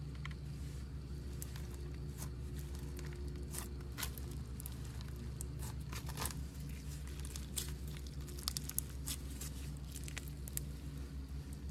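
Toy slime being squished and worked, giving a run of small crackles and pops over a steady low hum.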